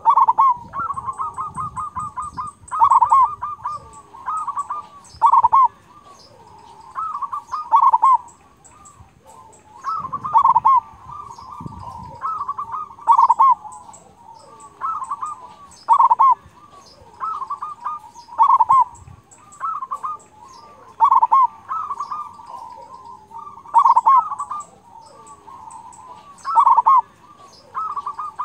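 Zebra dove (perkutut) singing its cooing song over and over: each phrase is a quick run of short notes ending in a loud, full 'kung' note, repeated about every two and a half seconds.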